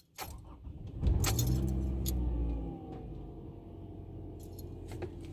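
2011 Toyota Camry LE cold start, heard from inside the cabin: the starter cranks briefly, the engine catches about a second in and runs up loudly, then settles near the three-second mark into a steady fast cold idle.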